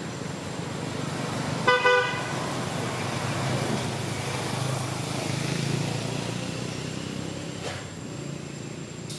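A vehicle horn gives a short double beep about two seconds in, over a steady low background rumble.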